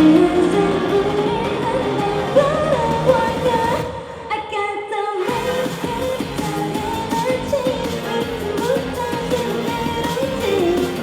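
Female vocals singing a pop-rock song over a live band. About four seconds in, the band drops out for just over a second, leaving the voice nearly alone, then comes back in.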